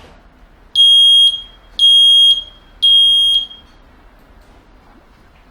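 Wireless photoelectric smoke detector's alarm sounder giving three loud, piercing high-pitched beeps about a second apart, each about half a second long. It is being set off by its test button.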